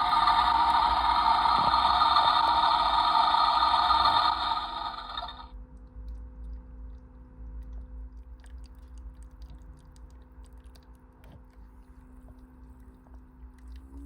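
Toy washing machine's small electric drum motor whirring steadily, then running down and stopping about four to five seconds in. A faint steady hum and a few light ticks remain, and at the very end a tone starts to rise as the motor begins to spin up again.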